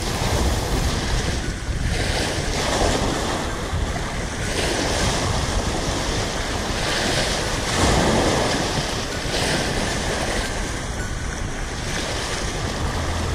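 Ocean waves washing and surging, swelling and easing several times, with wind rumbling on the microphone.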